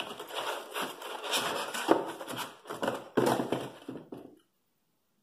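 Paper wrapping and cardboard packaging rustling and crinkling as a frying-pan handle is unwrapped and pulled out of a molded cardboard box insert, with a few sharp knocks. It cuts off suddenly about four seconds in.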